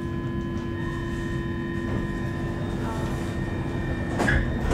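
Stockholm Metro C30 train standing at a platform, its onboard equipment giving a steady hum with several high, constant whining tones over a low rumble. A short, louder knock comes near the end.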